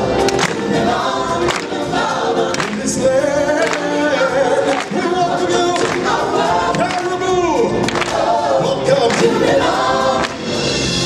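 A small group of stage singers singing together into microphones, with held notes and one long note sliding down in pitch about seven seconds in.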